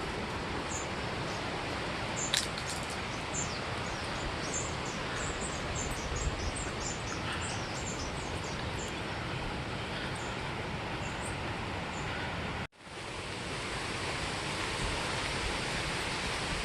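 Outdoor ambience: a steady rushing noise, with a bird giving short high chirps over and over for most of the first ten seconds. There is a single sharp click about two seconds in, and the sound cuts out for an instant near the end.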